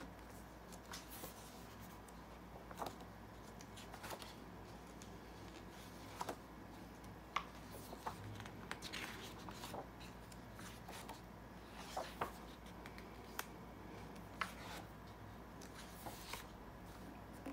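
Pages of a large hardcover book with thick paper being turned by hand: faint, scattered paper rustles and soft flicks every second or two, over a low steady room hum.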